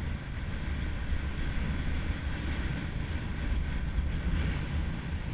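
Wind rumbling and buffeting on the microphone of a camera carried at speed down a ski slope, over a steady hiss of sliding on packed snow.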